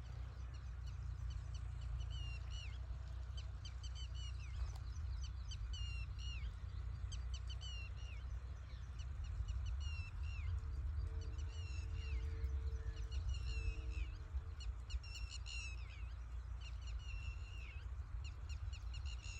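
A bird calling over and over in short runs of two or three quick, falling chirps, over a steady low rumble.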